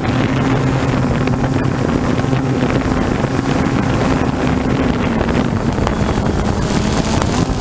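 DJI Phantom 2 quadcopter's motors and propellers running steadily in flight: a constant whirring hum over a rushing noise, with wind on the microphone.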